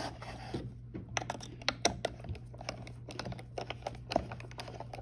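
A screw being driven into wood by hand with a screwdriver: a run of small, irregular clicks and creaks as the screwdriver turns and the screw threads bite through the board.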